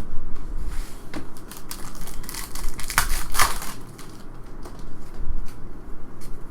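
Foil trading-card pack wrapper crinkling and crackling, with small clicks of cards being handled; the crinkling is loudest in the middle.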